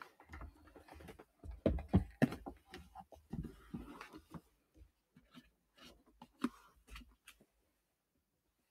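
Handling noise from small glass essential-oil bottles being taken out of and put back into a cardboard box: irregular clicks and soft knocks, with a few louder knocks about two seconds in that thin out toward the end.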